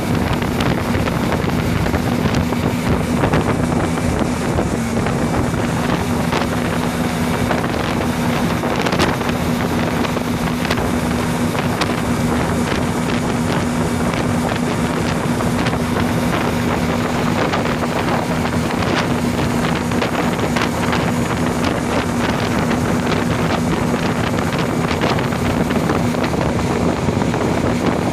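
Tow boat's engine running steadily at speed, a constant hum, with wind buffeting the microphone and the rush of the churning wake behind the boat.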